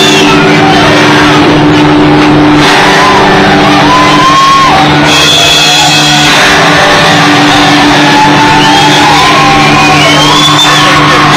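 Loud, distorted live rock music with a steady low drone held throughout, and people shouting and whooping over it.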